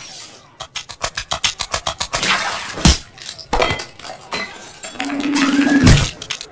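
Dishes and cutlery clinking and clattering: a quick run of sharp clicks, then several louder clatters, with a short steady low tone about five seconds in.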